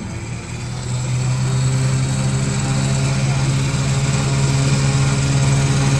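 Vehicle engine running steadily: a steady low hum that rises a little about a second in, then holds.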